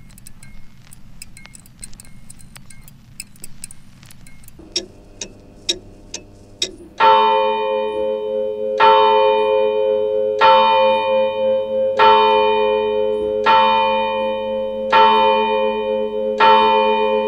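Soundtrack of light tinkling chimes and ticks. From about seven seconds in, a bell-like tone is struck roughly every second and a half, each stroke ringing out over a sustained drone.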